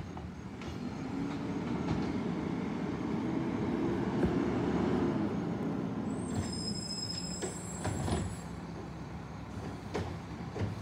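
Garbage truck engine running, its pitch and loudness rising over the first few seconds and falling back as the truck rolls slowly along the street. A few short clanks come near the end.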